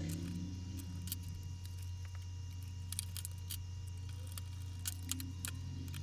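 Scattered light clicks and taps from screws and the plastic case of an HP DV6000 laptop being handled during reassembly, over a steady low hum.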